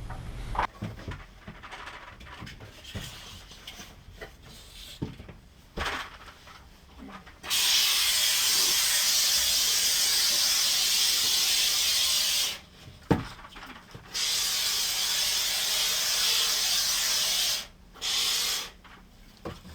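Can of expanding spray foam hissing as it dispenses in three bursts: one of about five seconds, one of about three and a half seconds, and a short one near the end. Scattered light handling knocks come before the first burst.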